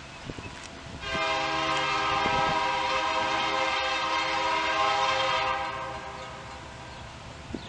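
Nickel Plate Road 765's chime steam whistle blowing one long blast of about five seconds, several notes sounding together as a steady chord, then fading out.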